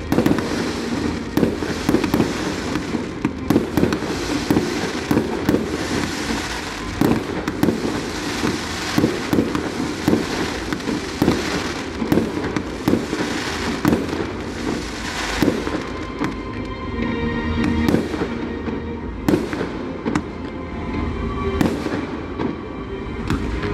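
Aerial firework shells launching and bursting in a dense, rapid run of bangs and crackles. Near the end the bangs thin out to separate booms a second or two apart.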